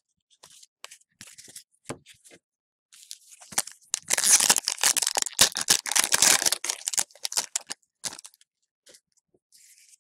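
A foil hockey card pack torn open, a dense crackling tear and crinkle of the wrapper lasting about three seconds in the middle. Light ticks and rustles of cards being handled come before and after it.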